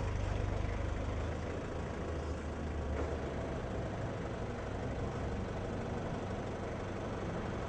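Road traffic: engines of queued cars idling and running, a steady low rumble.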